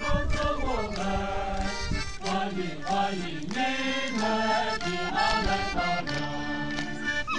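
A group of Miao villagers singing together, holding long notes that step up and down.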